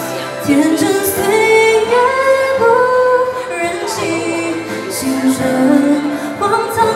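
A woman singing a Mandarin pop ballad into a handheld microphone over backing music, holding long notes.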